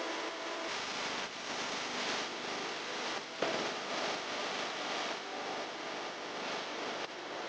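Multi-spindle CNC router milling wood: a steady rushing cutting noise that jumps up suddenly about three and a half seconds in.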